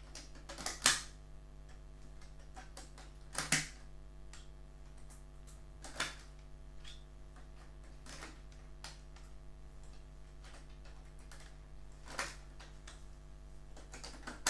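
Plastic terminal covers snapped by hand onto the cell terminals of a LiFePO4 battery pack: about six sharp clicks a few seconds apart, with fainter taps between, over a steady low hum.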